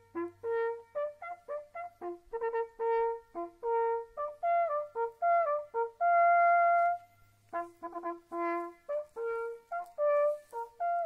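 Hunting horn playing a fanfare-like call: quick runs of short notes, one long held note about six seconds in, then more short notes.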